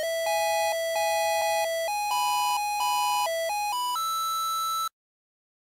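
Simple electronic background music: a melody of clean, chime-like synthesized notes stepping up and down. It ends on a held higher note that cuts off suddenly about five seconds in, followed by silence.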